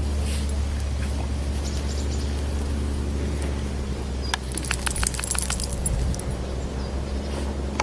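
Steady low rumble throughout. From about four to six seconds in comes a quick run of light, jingly clicks, a small dog's collar tag jingling as it gets up from rolling in the grass.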